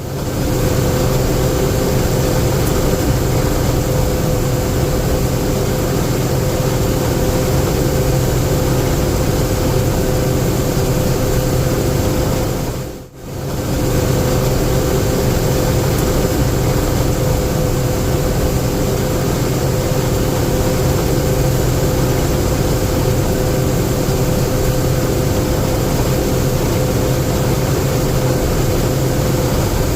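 Steady machinery hum with a constant pitch, broken once by a brief dip about halfway through.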